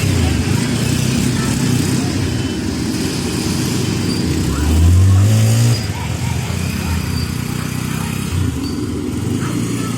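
Heavy machinery diesel engine running steadily, revving up about halfway through with a rising pitch, then dropping back abruptly a second later.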